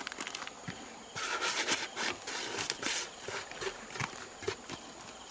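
A crinkling plastic bait bag as dry groundbait is shaken out into a plastic basin, the rustling strongest for about two seconds near the start. Scattered clicks and knocks of footsteps on loose rocks follow.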